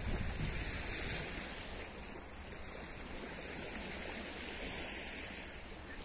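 Small waves washing onto a sandy beach in a steady hiss, with wind rumbling on the microphone mostly in the first second or so.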